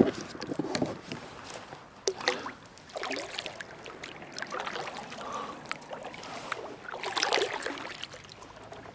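Kayak paddle strokes: the blade dipping and pulling through calm water, with splashing and dripping from the blade. Several strokes come a second or two apart.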